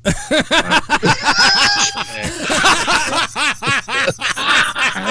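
A man's laugh in quick, short pulses, a bleating, sheep-like laugh, played back as a soundbite.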